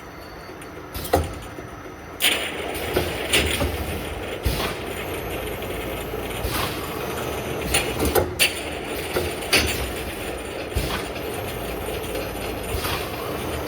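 Cough syrup bottle packing machine running: a steady mechanical clatter with sharp, irregular clacks and knocks, which gets louder about two seconds in.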